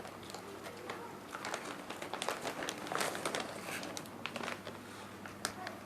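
Close-up chewing of a fried snack, with many irregular crunchy crackles and clicks.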